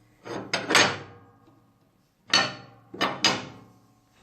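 Heavy metal table-saw insert (throat plate) being set down into the saw table's opening and lifted out again, clunking against the cast top several times with a short metallic ring after each knock: two or three knocks about half a second in, one just past two seconds, and two more around three seconds.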